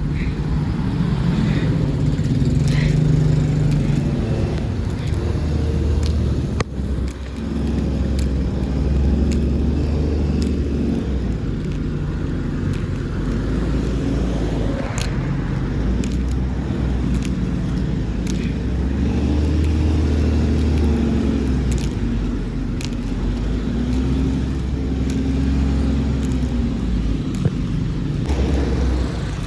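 Street traffic: cars driving past with a steady low rumble, engine notes rising and falling as vehicles come and go.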